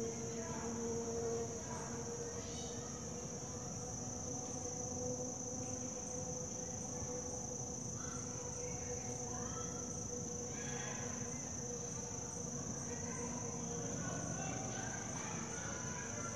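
Insects droning steadily at a high, even pitch, with faint short chirps coming and going over it.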